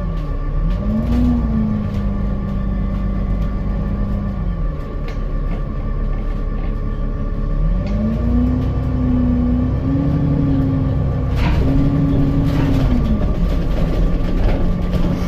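Alexander Dennis Enviro400 MMC double-decker bus running, heard from on board. Over a steady engine rumble, a drivetrain whine rises, holds and falls in pitch twice: once near the start and again from about 8 to 13 seconds, with a knock partway through the second. A constant high-pitched tone sounds throughout.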